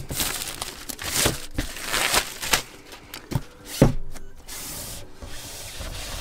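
Keyboard packaging being opened and handled: irregular rustling, scraping and tearing, with a sharp knock about four seconds in.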